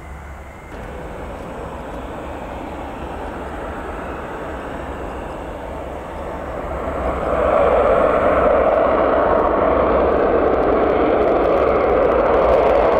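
Mitsubishi F-2 fighter's single F110 turbofan jet engine running at taxi power as the jet taxis, a steady jet rush that grows louder as it comes around toward the listener, stepping up sharply about seven seconds in.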